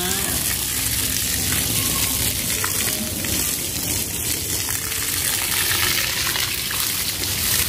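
Water from a garden hose spraying steadily onto a wet German Shepherd's coat and splashing onto the stone floor: an even hiss.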